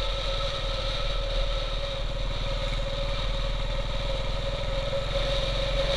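Motorcycle engine running steadily while the bike cruises along the road, its rapid firing pulses even throughout.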